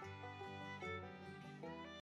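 Outro music: a melody of held, changing pitched notes over a steady accompaniment, stopping abruptly at the very end.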